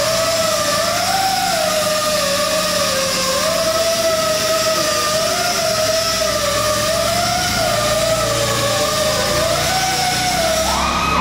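CAT GC30K propane forklift running, its hydraulic pump giving a whine that wavers slowly up and down in pitch with engine speed as the lift controls are worked, over a steady engine rumble. Near the end the whine jumps higher as the forklift drives off.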